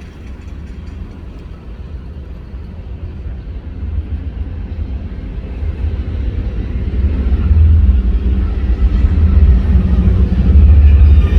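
Low rumble of city road traffic, growing steadily louder.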